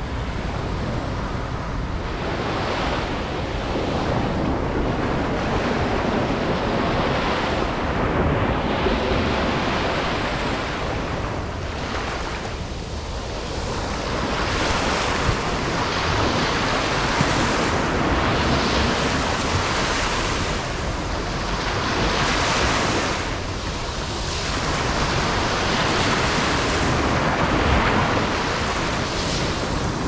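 Small sea waves breaking and washing up a sandy shore, the surf swelling and easing every few seconds, with wind rumbling on the microphone.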